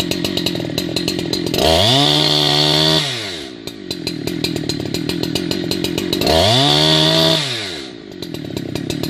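Two-stroke chainsaw running at idle, throttled up twice to high revs for about a second and a half each before dropping back to idle.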